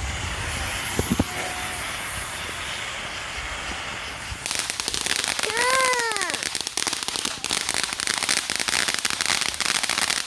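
Consumer firework going off: a steady hiss with two sharp pops about a second in, then a dense, rapid crackling from about four and a half seconds in. A short tone rises and falls about halfway through.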